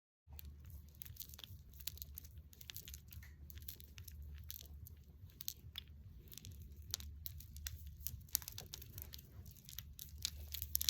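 Close-up crunching and crackling: a dense, irregular run of sharp clicks over a low steady hum.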